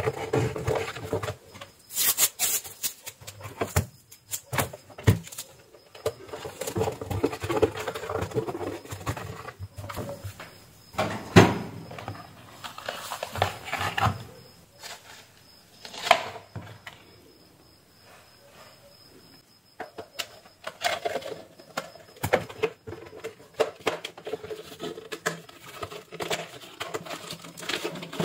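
Plastic parts of an LED ceiling light being handled and fitted back together: irregular clicks, taps and rustling, with a few sharper clicks, the loudest about eleven seconds in, and a quieter stretch a little after halfway.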